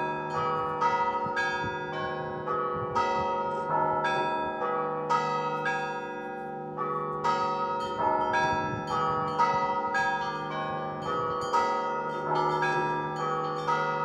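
Russian Orthodox church bells being rung (kolokolny zvon). Quick, repeated strikes of several smaller bells, a few a second, ring over the longer-sounding tones of the larger bells.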